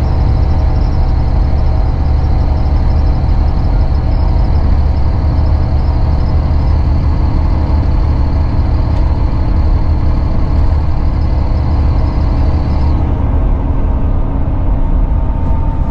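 Cabin noise of a Volvo B9R coach with Caetano Levante body on the move: the rear-mounted six-cylinder diesel's steady low drone mixed with road and tyre noise. A faint high-pitched hiss stops about thirteen seconds in.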